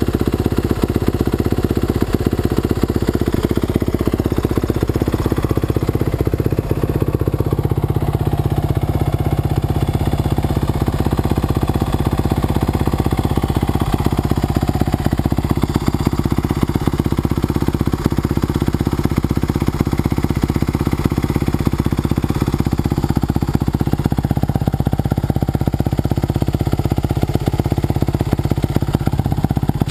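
2009 Kawasaki KX450F single-cylinder four-stroke engine idling steadily through its FMF Powerbomb header and stock silencer.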